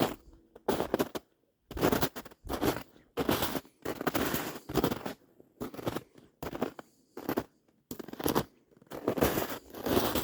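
Footsteps crunching and crackling through dry twigs, leaves and brush on the swamp floor, in irregular steps about one or two a second.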